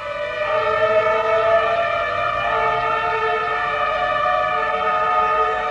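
Fire engine siren sounding, a steady wail whose pitch rises slightly in the first second or so, then holds.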